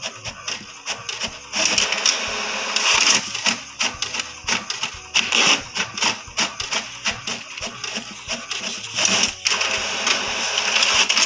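HP DeskJet 2331 inkjet printer printing a page: rapid clicking and whirring from the print-head carriage and paper feed, with louder passes that come and go several times as the sheet feeds out.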